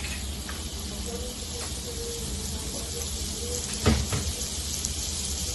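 Butter melting and sizzling gently in a pan over a gas flame, with a single knock about four seconds in.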